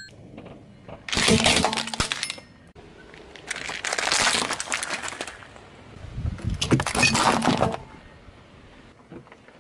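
Car tyre rolling over and crushing small plastic toys and plastic chocolate-egg capsules: three separate bursts of crackling, crunching and splintering plastic, each lasting one to two seconds.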